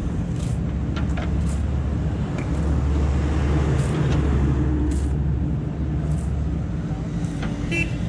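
JCB 3DX backhoe loader's diesel engine running steadily, working harder for a few seconds in the middle while the backhoe bucket digs into the soil. A few short knocks are heard along the way.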